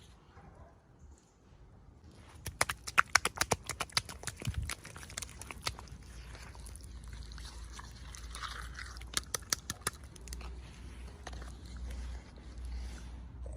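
Plastic toy packaging being handled and opened up close: quick clusters of clicks, taps and crinkles, the densest from about two and a half seconds in and again around nine seconds, with quieter rustling between them.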